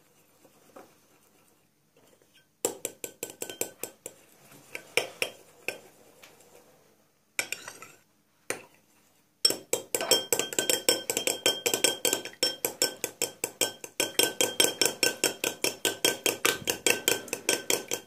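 A metal fork stirs glue and laundry-gel slime mixture in a glass bowl, clinking against the glass several times a second with a ringing tone. The stirring starts a couple of seconds in, stops briefly near the middle, then runs on steadily.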